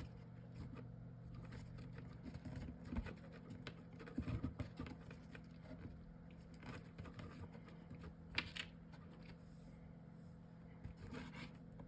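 Faint handling sounds of cut paper and chipboard craft pieces being glued and fitted on a tabletop: scattered light taps and clicks, a few a little louder, over a low steady hum.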